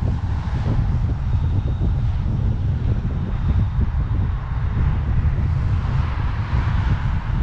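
Wind buffeting the microphone of a cyclist riding along a road, a heavy fluttering rumble, with traffic noise that swells toward the end.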